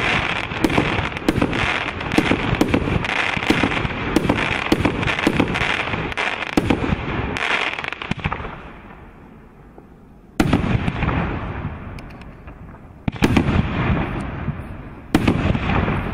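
Multi-shot fireworks cake firing: a dense run of shots and crackling bursts dies down about eight seconds in. Three single bangs follow a few seconds apart, each one trailing off.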